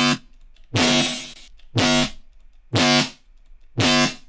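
Distorted synth bass patch from the Serum software synthesizer, looping a short pitched note about once a second, with its filter resonance turned up for a more drastic effect.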